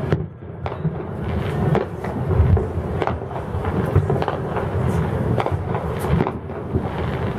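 Distant fireworks going off over a city: irregular bangs and pops, roughly one or two a second, over a steady low rumble.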